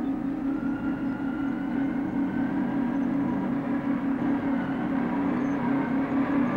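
Clark Michigan 675 wheel loader's diesel engine running under load as the machine travels with a full bucket of shot rock: a steady low drone with a fast flutter, and a faint wavering whine above it.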